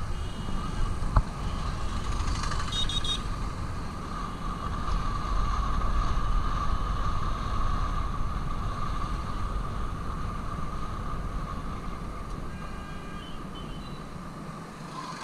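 Steady engine and road rumble from a vehicle driving through town traffic. A quick series of horn beeps sounds about three seconds in, and fainter horn beeps come near the end.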